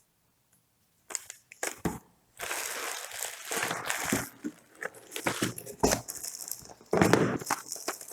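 Packaging being handled and unwrapped: irregular crinkling and rustling of plastic wrapping, starting about a second in and loudest near the end.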